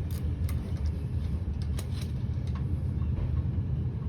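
Scattered light metallic clicks of a 13mm wrench working the battery cable nut on a riding mower, over a steady low rumble.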